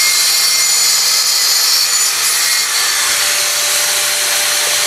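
Handheld electric tile cutter (angle-grinder type) grinding through a floor tile: a loud, steady, harsh high-pitched grinding of the blade in the tile.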